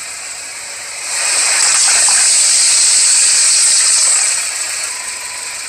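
Rushing hiss of water gushing and spraying from water-filled balloons burst under a car tyre, swelling about a second in and easing off near the end.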